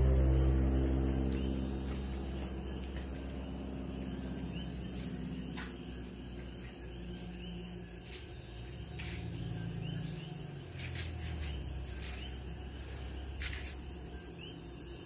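Night insects chirping in a steady, high-pitched chorus. A low rumble fades away over the first couple of seconds, and there are a few faint clicks.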